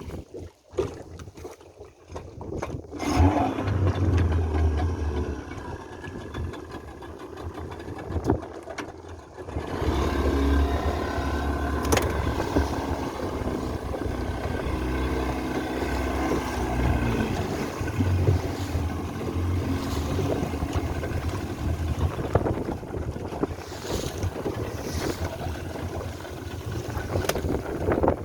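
A small fishing boat on the water: wind buffets the microphone in patchy gusts, then from about ten seconds in comes a steady rumble with a faint motor-like hum.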